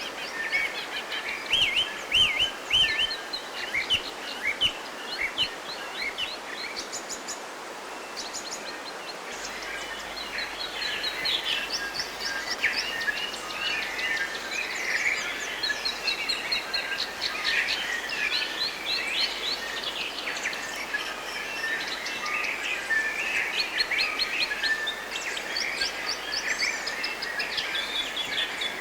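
A chorus of several birds calling and singing at once in New Zealand bush, with chirps, trills and quick repeated notes over a steady soft background hiss. The chorus grows busier about a third of the way through.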